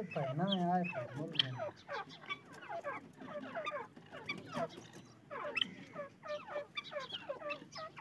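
Francolins (teetar) giving a busy run of short, squeaky, chattering calls, one after another throughout. A lower wavering sound, the loudest part, comes in the first second and a half.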